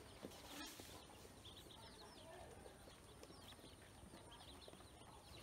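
A brood of ducklings peeping softly in quick, high chirps while they feed, with a brief rustle under a second in.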